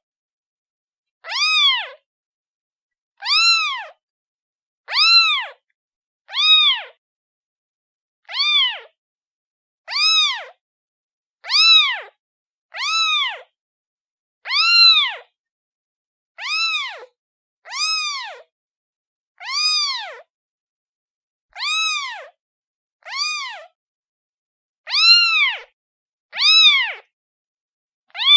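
Kitten meowing over and over: high meows that rise and fall in pitch, each under a second long, about one every second and a half.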